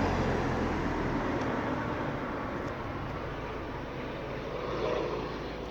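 Steady drone of a police helicopter hovering overhead, mixed with street vehicle noise; a low engine hum from a passing vehicle fades out about a second in.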